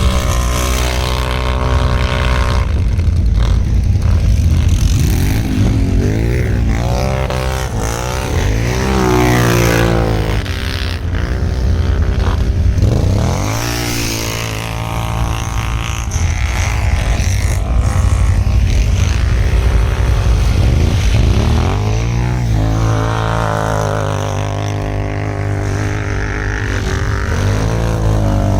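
ATV engines revving up and down, their pitch repeatedly rising and falling every few seconds.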